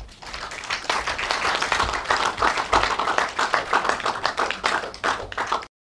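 Audience applauding: a dense run of hand claps that starts just after a low thump and cuts off suddenly near the end.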